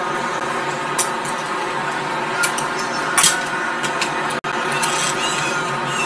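Small clicks and taps of a tablet motherboard being prised out of its plastic frame, a few sharp ones spread through, over a steady electrical hum and hiss.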